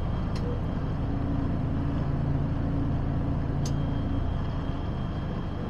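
Heavy truck's diesel engine running steadily at low revs, heard from inside the cab as a low hum, while traffic passes at a roundabout.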